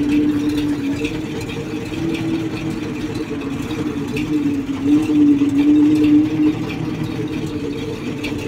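GAZ-53 truck's V8 engine idling steadily.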